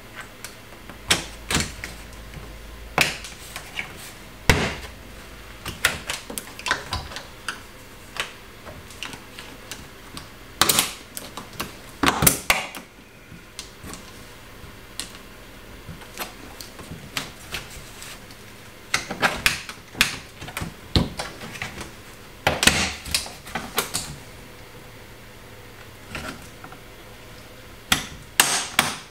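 Plastic retaining clips of a Tesla Model 3 trunk lid trim panel snapping loose as the panel is pried off with a plastic pry tool: a series of sharp snaps and clicks, some single and some in quick clusters, with quieter gaps between. The snapping is the clips releasing, not the panel breaking.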